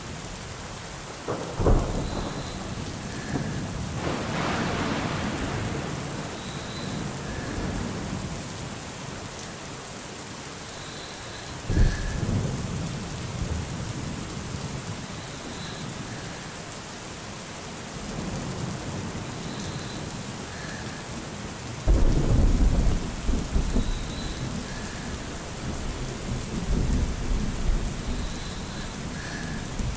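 Steady rain with thunder. Sharp cracks come about a second and a half in, around the middle, and about two-thirds of the way through, each rolling off into a low rumble, with further rumbles swelling between them.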